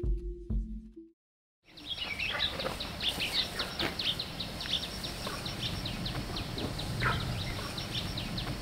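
The tail of the title music ends about a second in. After a brief silence comes outdoor ambience: many birds chirping in quick, short, high down-sweeping calls over a low rumble.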